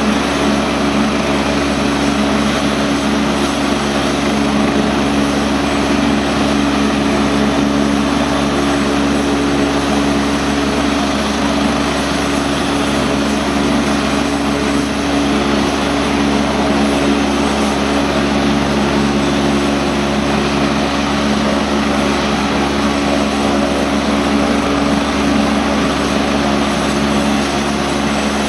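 RNZAF AgustaWestland A109 helicopter running steadily on the ground before takeoff: its twin turbines and rotor make a constant whine with a hum, unchanging throughout.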